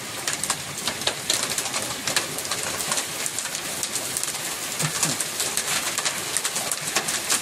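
Hailstorm with heavy rain: a dense hiss full of sharp ticks as hailstones pelt down and bounce.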